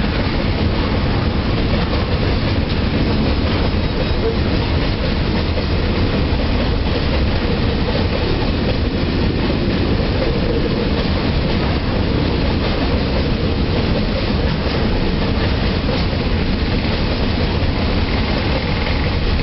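A long freight train's wagons rolling past on the rails, with a steady, loud wheel noise that neither builds nor fades.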